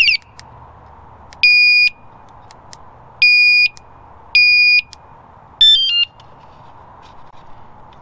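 Budget motorcycle vibration alarm unit sounding from its remote: a warbling chirp cut off at the very start, then three steady electronic beeps about half a second each, then a quick falling chirp of stepped tones near 6 seconds in, which is its unlock sound.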